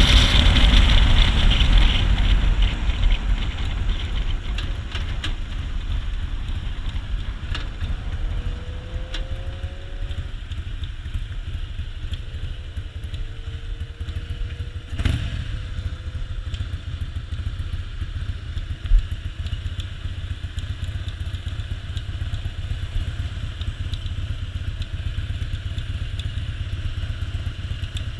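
2001 Harley-Davidson Softail's V-twin engine idling very low, a steady low throb after a louder first couple of seconds. The low idle is the symptom of a fault that the owner says turns into misfiring under even slight load. A single sharp knock sounds about two-thirds of the way through.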